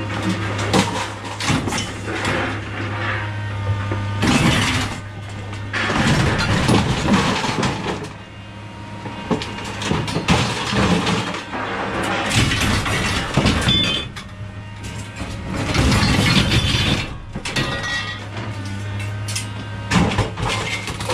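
Scrap metal being unloaded: pieces of iron clattering and clanging as they are thrown down, in several rattling spells, some of them ringing, over a steady low engine hum.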